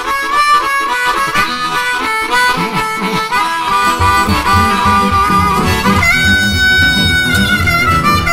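Blues harmonica playing a fast run of short notes in an electric blues track. About four seconds in a steady low beat from the rhythm section comes in underneath, and about six seconds in the harmonica holds one long note that bends slightly down near the end.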